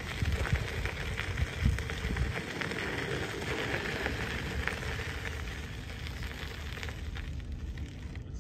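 Tyres of a Loomo self-balancing transporter rolling over a gravel path: a steady crunching crackle. Wind rumbles on the microphone, with a few low thumps in the first two seconds.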